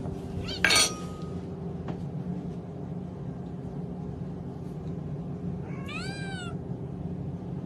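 A cat meowing once, a single call rising and falling in pitch, near the end. Under a second in there is a short, loud, sharp noise.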